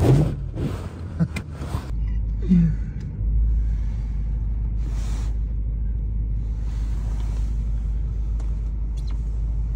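BMW E9x M3 with a V8 ploughing off the road into a deep snow bank, heard from inside the cabin: a few quick rushes and thuds of snow against the body and windscreen in the first two seconds, then the engine running on with a steady low drone as the car sits buried in the snow.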